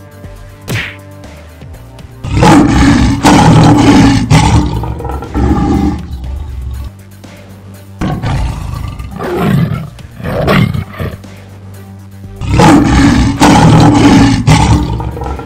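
Lion and tiger roars and snarls, two long loud bouts with quieter growls between them, over steady background music.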